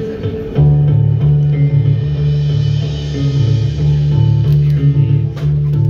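Live band of electric bass, electric guitar and drum kit playing instrumental math rock. A loud, melodic bass line comes in about half a second in under picked guitar notes, with cymbal hits near the end.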